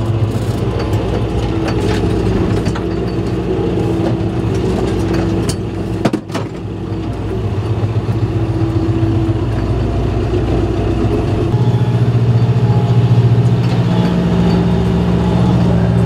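John Deere tractor's diesel engine running steadily, heard from inside the cab. It dips briefly with a click about six seconds in, then grows louder and heavier from about two-thirds of the way through.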